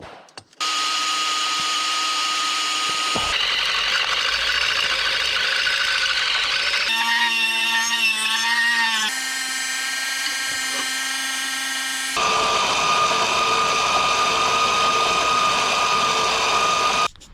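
Power drill boring through metal hinge stock with a steady whine. The whine comes in several spliced stretches, each at a different pitch, and wavers for a few seconds in the middle.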